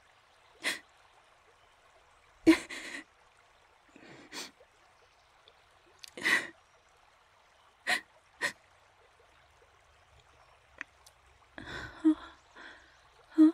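A woman crying without words: a series of short, sharp sniffles and gasping breaths, a second or two apart, coming closer together near the end.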